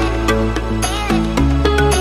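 Background music with sustained bass notes, a pitched melody and a steady beat.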